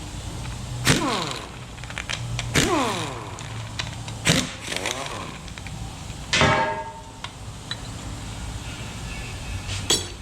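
Metal engine parts and hand tools clanking: four sharp metallic knocks, roughly two seconds apart, each with a short metallic ring, the longest ring after the fourth.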